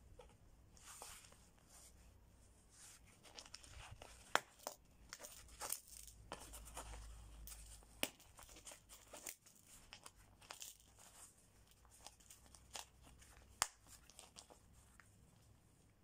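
Black nylon MOLLE pouch being handled: the fabric and webbing straps rustle and scrape, with a few sharp clicks from the snap fasteners on its straps.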